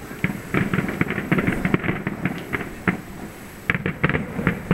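Aerial fireworks shells bursting in a rapid, irregular string of pops and bangs. The bangs bunch together in the first second and a half and again near the end.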